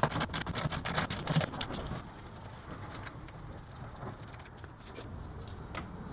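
Socket ratchet clicking rapidly as an 8mm bolt on the air filter housing is backed out, for about the first two seconds. After that it goes quieter, with a few single clicks.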